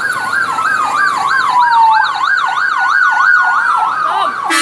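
A bus's electronic multi-tone horn sounding a siren-like warble, its pitch swinging up and down about three times a second over a steady held tone, with a falling tone gliding beneath it about a second in. Right at the end a loud air-horn blast cuts in.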